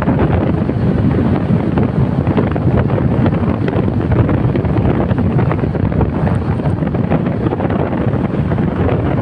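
Wind buffeting the microphone at the side window of a moving Toyota Hilux, with road noise from the car underneath; a loud, steady rush.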